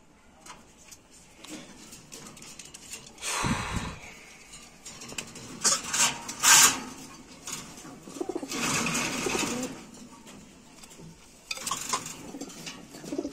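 Domestic pigeon cooing on its nest in a wire cage, with several loud bursts of metallic clatter from the cage bars being handled. The loudest clatter comes about six and a half seconds in.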